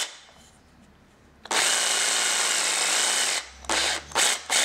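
Makita 18V brushed cordless jigsaw running free with no load, its blade stroking in the air: quiet at first, then one steady run of about two seconds that cuts off, followed by a few short trigger blips near the end.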